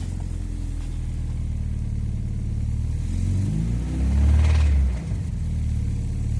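Alfa Romeo 166 2.0 Twin Spark four-cylinder engine idling, blipped once about three seconds in, rising to a short rev and falling back to idle just before five seconds. It runs with the engine knock its owner is asking about, which a listener later likens to a loose nut rattling inside.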